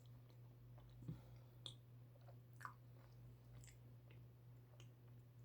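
Faint chewing of a dulce de leche empanada: a few soft mouth clicks and smacks, spaced about a second apart, over a low steady hum.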